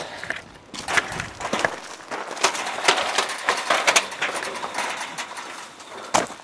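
Rattling and scraping at a chain-link fence gate, with footsteps crunching on gravel: an irregular run of knocks and rustles, busiest in the middle.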